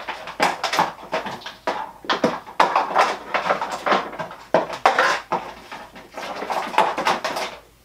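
Rummaging: a quick, irregular run of clicks, knocks and rustles as hard objects are moved and knocked about while a meter is dug out.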